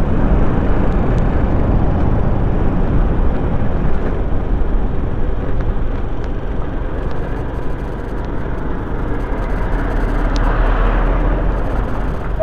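Wind rushing over the microphone with road noise and a low engine rumble from a Forte 250-CKA motorcycle riding along at speed. The noise swells briefly about ten seconds in.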